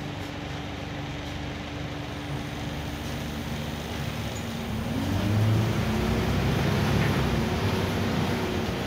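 Scania N94UB bus's diesel engine, heard from inside the saloon: a steady idle while queued, then about halfway through it revs up and pulls away, getting louder with its note rising and falling.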